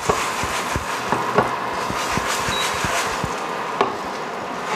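Aluminium frying pan shaken back and forth on a glass induction cooktop, its base knocking and scraping on the glass in quick, irregular taps, as the flatbread pancake is loosened before flipping.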